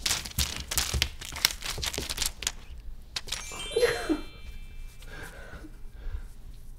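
Crinkly plastic-film cat toy crackling and rustling in quick bursts as a cat swats and grabs at it. About three and a half seconds in comes a short sparkling chime of high ringing notes.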